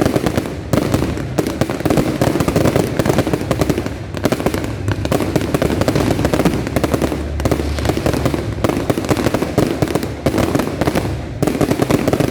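Fireworks display going off in a dense, continuous barrage of rapid bangs and crackling.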